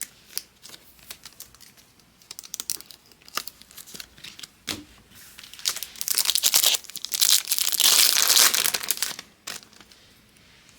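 Light scattered clicks and taps of trading cards being handled, then, about six seconds in, a few seconds of loud crinkling and tearing as a card pack's wrapper is ripped open.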